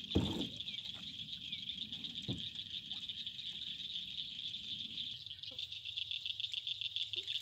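Evening chorus of insects: a steady high-pitched shrill that pulses more plainly near the end. A soft knock comes just at the start and another about two seconds in.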